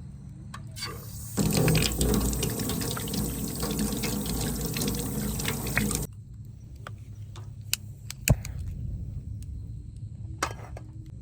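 Water running and splashing for about five seconds, starting and stopping abruptly, followed by a few light clicks and one sharp knock.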